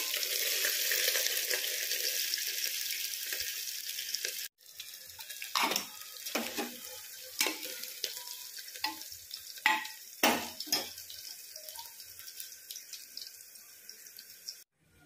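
Sliced onion sizzling in hot oil with whole spices in an aluminium pressure cooker. After a brief cut the sizzling is quieter, and a spatula scrapes and knocks the pan several times.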